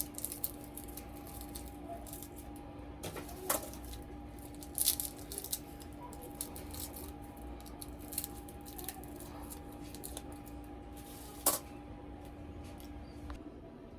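Kitchen food preparation: scattered small clicks and knocks of ingredients and utensils being handled, over a steady hum that stops shortly before the end.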